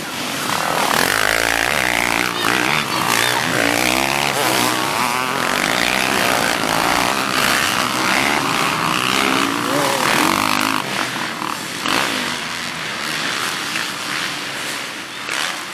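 Several motocross dirt bike engines racing through a corner, revving up and down with their notes overlapping; the engines are loudest for most of the stretch and ease off after about eleven seconds.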